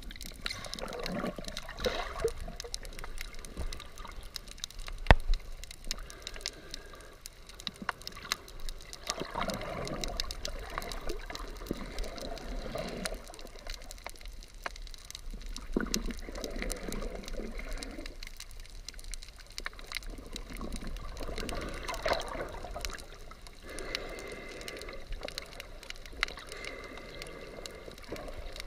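Underwater water noise picked up through a submerged GoPro's housing: muffled gurgling and sloshing that swells every few seconds over a constant fine crackle, with a sharp click about five seconds in.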